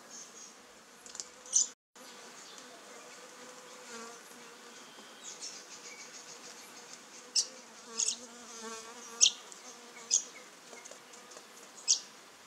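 Orange-and-black wasp buzzing faintly and steadily, with about six short, sharp, high chirps or clicks over it, the loudest sounds here. The sound drops out briefly about two seconds in.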